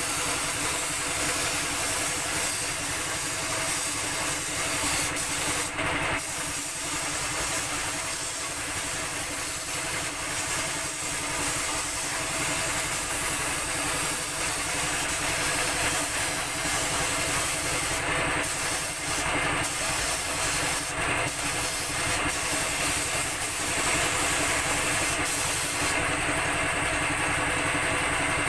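Compressed-air paint spray gun hissing in long passes, its hiss stopping briefly several times as the trigger is released, over the steady hum of a running air compressor.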